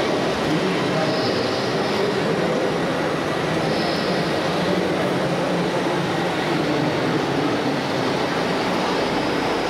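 Steady mechanical running noise of RC model trucks and construction machines, with a faint squeal on top.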